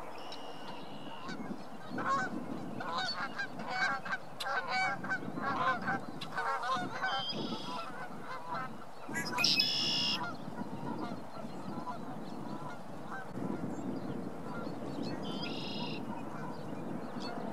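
Red-winged blackbirds singing, the short high song heard several times: about a second in, around seven seconds, loudest at about nine to ten seconds, and again near the end. Between about two and seven seconds a rapid run of lower honking calls from other birds is the loudest sound.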